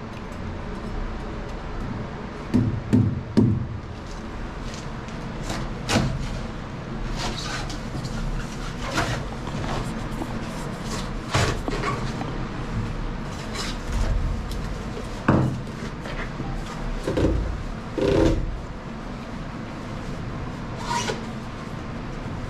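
A hand tool knocking and scraping against fiberglass as chunks of waterlogged pour foam are pried out of a boat's stringer channel. The knocks and scrapes are irregular, coming every second or two.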